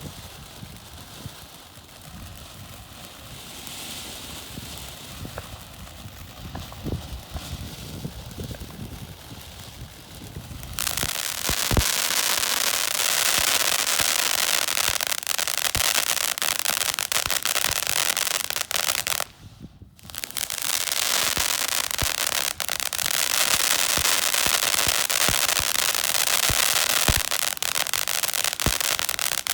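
Sizzler Fountain firework spraying with a loud, dense hiss full of rapid crackles. It starts about eleven seconds in after a quieter stretch and drops out once, briefly, about two-thirds of the way through.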